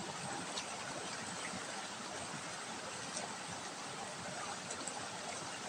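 Small rocky forest stream running and spilling over rocks in a low cascade: a steady rushing of water.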